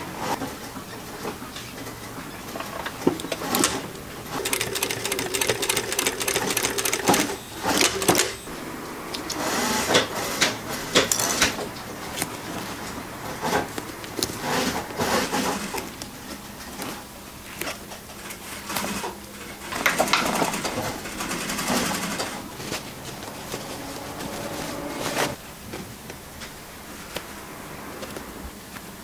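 Sewing machine stitching in short runs of a few seconds, with fabric rustling and being handled between runs.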